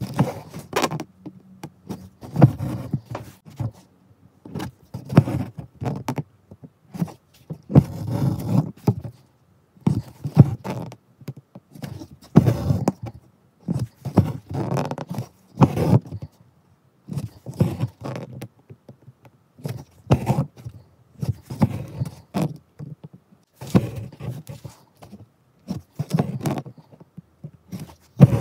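Hand embroidery in chain stitch: a needle pierces the cloth and the thread is drawn through, making rubbing and scraping noises in irregular short bursts with silences between.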